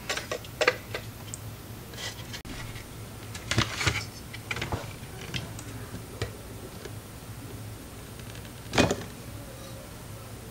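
Small clicks and clatters of a graphics card being taken apart by hand: tiny screws and metal parts handled on a silicone work mat, with a sharper knock about nine seconds in as the aluminium heatsink comes away.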